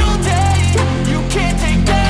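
Background pop music: a melody over a sustained deep bass.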